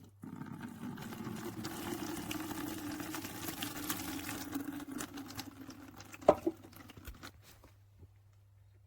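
Acid solution poured through a cloth filter, a steady trickling of liquid that stops about seven and a half seconds in, with a sharp knock about six seconds in.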